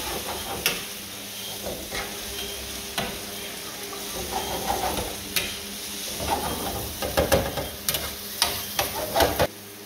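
Diced tomatoes, onion and garlic sizzling in a nonstick frying pan over a gas burner, stirred with a metal spoon that scrapes and taps against the pan now and then, more often in the last few seconds.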